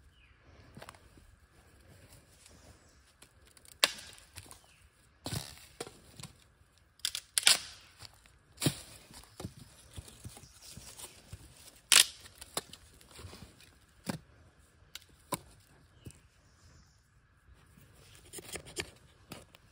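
Dry sticks being gathered and handled on leaf litter while a fluffy fire starter is readied for a small fire lay: a dozen or so short, sharp cracks and rustles at irregular intervals, the loudest about four, seven and a half and twelve seconds in.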